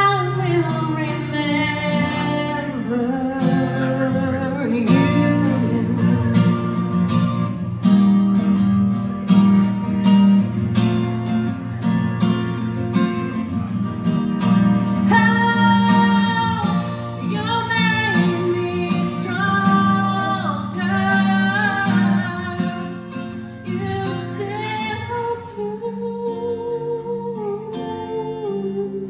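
A woman singing with acoustic guitar accompaniment, a live song, her voice rising and falling in long held notes over steady guitar strokes.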